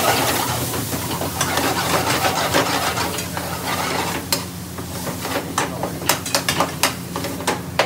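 Metal spoons stirring and scraping around frying pans of curry sauce sizzling over gas burners, with sharp clinks of metal on metal that come thick and fast in the second half, over a steady low hum.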